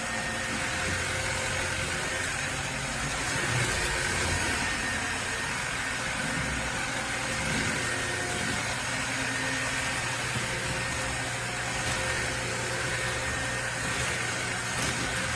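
Kenmore DS1020 16V cordless stick vacuum running steadily: an even motor hiss with a thin high whine over it.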